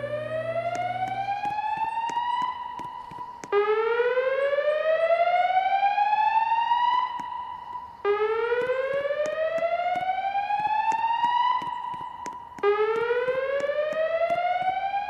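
Fire alarm whoop tone from the building's voice-evacuation speaker strobes (Wheelock E-50 wall and E-60 ceiling units). Each whoop rises steadily in pitch over about three and a half seconds, holds its top note briefly, then drops back and starts again, about three times in all. This is the alarm-tone part of the evacuation cycle, played between the spoken fire messages.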